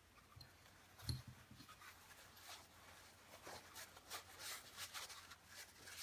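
Faint handling and cleaning sounds on a Beretta 92FS pistol: a soft knock about a second in, then a run of light scratching and rubbing strokes.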